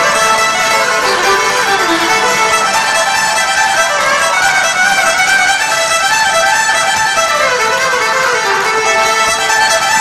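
Live folk-punk band in an instrumental break, an amplified fiddle carrying the lead melody in quick falling and rising runs over the full band.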